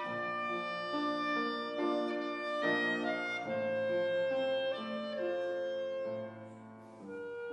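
Clarinet playing a melody of held notes with piano accompaniment, growing briefly softer near the end.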